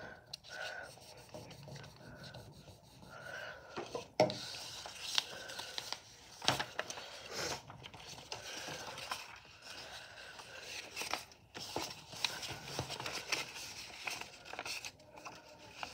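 Strips of brown paper being pressed flat, rubbed and slid across a wooden tabletop, a steady irregular rubbing with a couple of sharp taps about four and six and a half seconds in.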